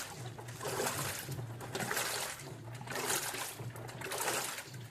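Water sloshing and splashing inside an LG washing machine, surging about once a second, over a steady low hum.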